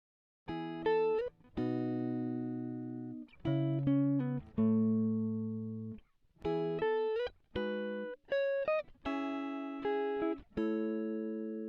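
Background music of plucked chords and short melodic phrases, starting about half a second in.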